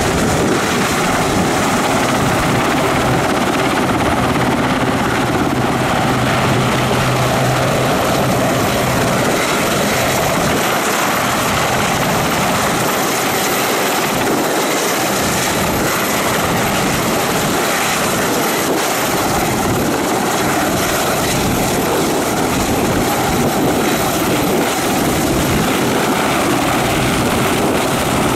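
Westland Sea King helicopter in a low hover as it descends, with its main rotor and twin Rolls-Royce Gnome turboshaft engines running loud and steady. A thin steady high whine runs over the rotor noise.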